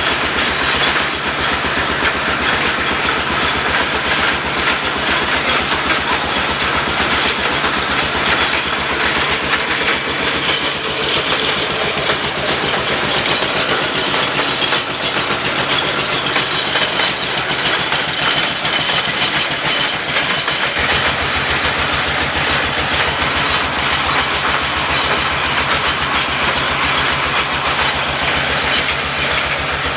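Bore well drilling machine running steadily, with a fast, even hammering rhythm over the engine. The deep rumble underneath grows stronger about two-thirds of the way through.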